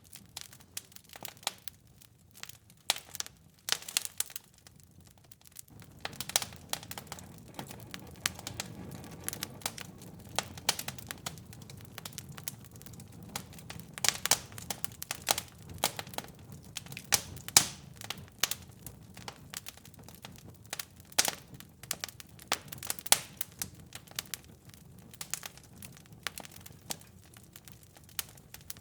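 Fire in a fireplace crackling, with many sharp irregular pops and snaps. A low steady rushing of the flames comes in about six seconds in and carries on under the crackles.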